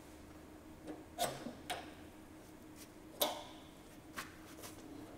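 Retaining rings being pressed onto the rod-lever pins of a sheet-metal damper linkage with a push tool: about six short, sharp metallic clicks, the loudest a little past three seconds in.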